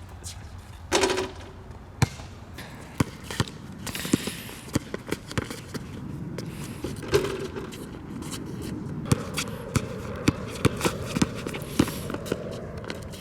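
A basketball being dribbled on a court: a string of sharp bounces, irregular at first, then steadier at about two to three a second in the second half.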